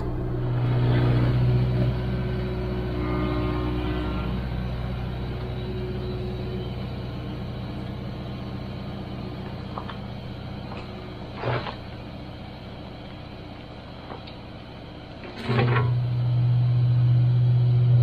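Kubota KX057-4 excavator's diesel engine running steadily, getting louder at a steady pitch twice as it works harder, about a second in and again for the last couple of seconds. A short knock comes about halfway through.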